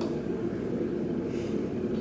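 Steady low background rumble with no words.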